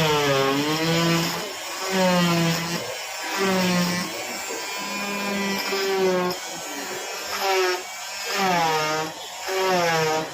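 Electric cast saw cutting through a plaster cast on a fractured hand. Its whine comes in stretches of a second or two, dipping in pitch as the blade bites and rising when it lifts.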